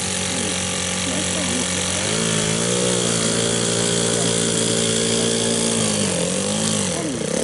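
Small engine running steadily, its pitch stepping up about two seconds in, holding, then dropping back about six seconds in.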